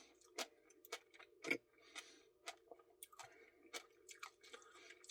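A person eating a Caramel Truffle Blizzard ice cream, with faint chewing and irregular wet mouth clicks over a faint steady hum.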